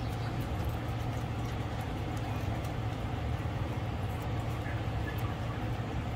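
Steady low hum and background rumble, with a few faint, light clicks over it.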